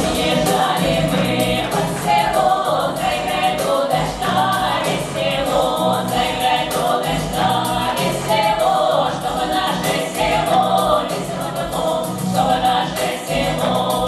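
Women's folk vocal group singing a Russian folk song together over accompaniment with a steady beat.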